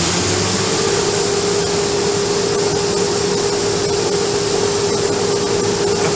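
Combine harvester running steadily while it unloads corn through its unloading auger, a steady mechanical hum that rises slightly in pitch in the first half second and then holds.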